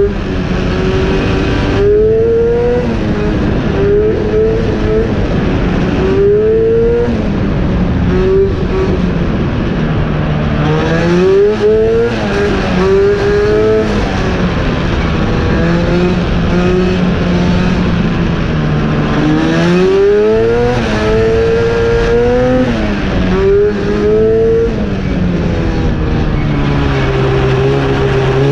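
Race car engine working through an autocross course: pitch repeatedly climbs under acceleration and drops off again every few seconds.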